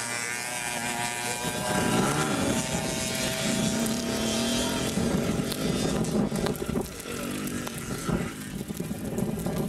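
Quad bike (ATV) engines revving up and down as the quads pull away along a dirt track.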